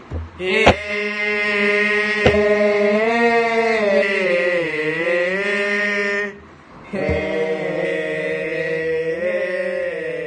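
Thai royal barge chant (he ruea): a male voice holding long, drawn-out notes that waver and slide in pitch, with a short break near the middle before the chant resumes. Two sharp clicks sound in the first few seconds.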